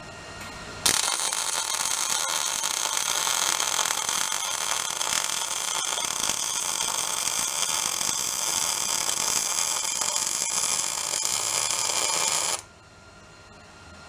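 Wire-feed welder laying a continuous bead on the steel thumb bracket: the arc's steady crackling sizzle starts abruptly about a second in and cuts off sharply near the end, after about twelve seconds.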